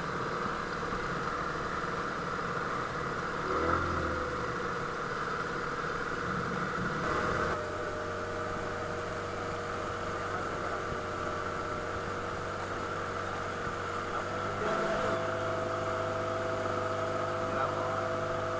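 15 hp outboard motor running steadily as the boat moves under way, its pitch stepping up twice, about a third of the way in and again near 15 seconds in.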